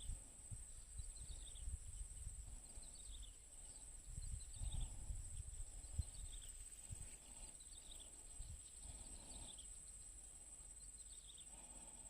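Outdoor ambience: a bird gives a short falling chirp about once a second over a steady high-pitched drone, with uneven low wind rumble on the microphone.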